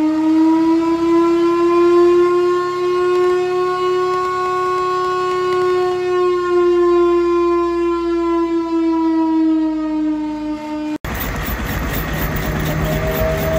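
A vintage fire truck's siren sounding one long wail, rising slightly, holding, then sliding gradually lower. About 11 seconds in it cuts off abruptly to a steady, noisy mechanical running sound.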